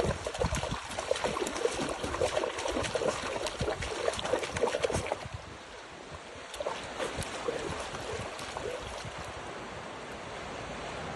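Small waves washing and splashing on a beach. The first five seconds are busier, full of short crackles and splashes, and after that it settles to a softer, even wash.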